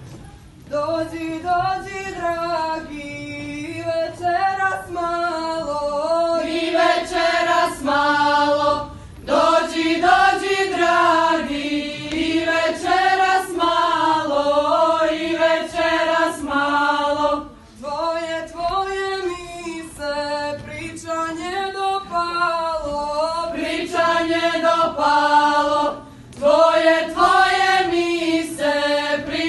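A group of girls singing unaccompanied. They enter about a second in and sing in phrases, with short breaks for breath about every eight to nine seconds.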